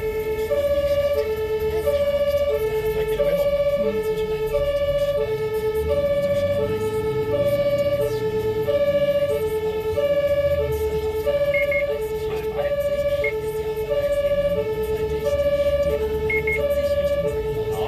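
An ambulance's German two-tone siren (Martinshorn) sounds continuously, switching evenly between a higher and a lower tone, about one pair every 1.3 seconds. It signals an emergency run. Under it runs the low rumble of the vehicle's engine and tyres, heard from inside the cab.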